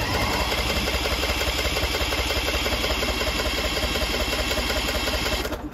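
Electric starter cranking a Vanguard 23 HP V-twin engine on choke, a steady fast-pulsing churn that does not catch and stops abruptly when the key is released, about five and a half seconds in.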